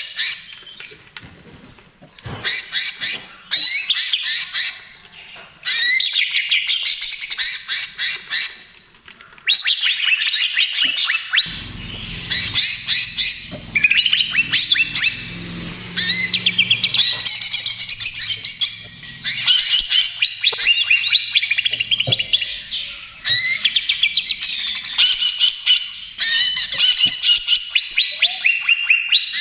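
Cucak ijo (green leafbird) singing energetically in long, rapid, chattering phrases with short pauses between them.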